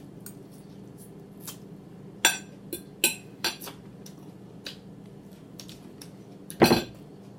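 Fork clinking and tapping against a plate while eating: a string of scattered, irregular clicks, with one louder clunk near the end.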